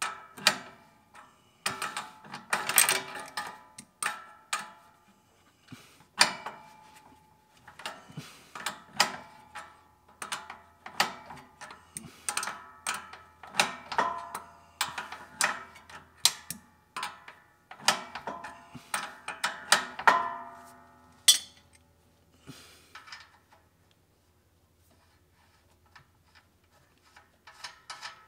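Wrench ratcheting and clinking in irregular runs of sharp metallic clicks as the nut on the zero-turn mower's drive-belt tensioner bolt is run in to tension the belt. The clicking pauses for a few seconds about three-quarters of the way through, then starts again near the end.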